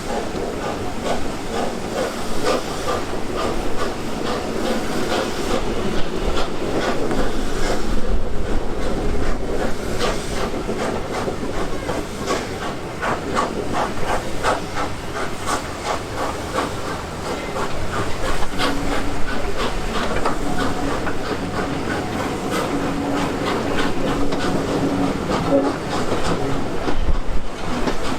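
Steam train running by at a heritage railway, its wheels clattering over the rail joints with a steady hiss of steam.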